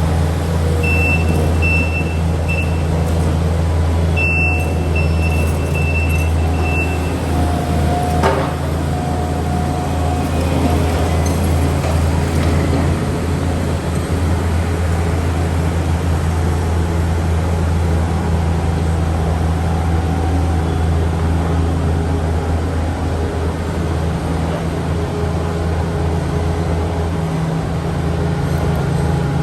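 Takeuchi TB153FR compact excavator's diesel engine running steadily while it digs. A thin high squeal comes and goes over the first several seconds, and a single sharp knock sounds about eight seconds in.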